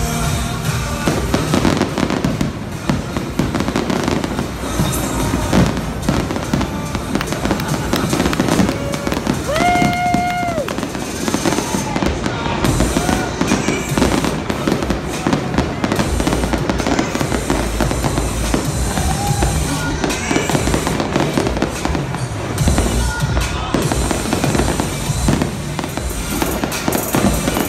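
Fireworks display in full swing: a dense, continuous barrage of booming shell bursts and crackling, with music playing beneath it over the stadium sound system.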